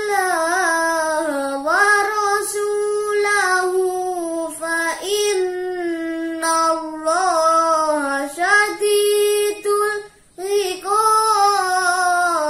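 A boy reciting the Qur'an in melodic tilawah style, holding long ornamented notes that waver and bend in pitch, with a brief pause for breath about ten seconds in.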